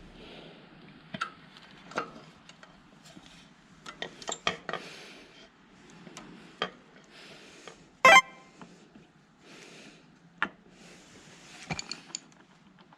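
Scattered metal clicks and clanks of tools and motorbike parts being handled, with one loud sharp clank about eight seconds in. The engine is not running.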